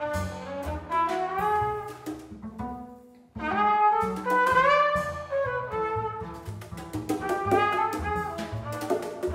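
Small acoustic jazz group playing live: trumpet carries the melody with tenor saxophone, over double bass and drum-kit cymbals. The music breaks off briefly a little over three seconds in, then resumes.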